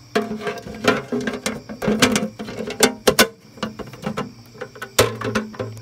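Irregular clattering, clicks and knocks from a container and its lid being handled, with several sharper knocks scattered through.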